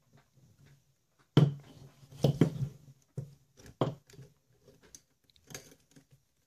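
Sharp clicks and knocks of an RC truck's motor and transmission unit being pushed and wiggled by hand into the chassis and its rubber mounts. A few separate knocks come loudest about a second and a half in, then a quick cluster and scattered lighter clicks.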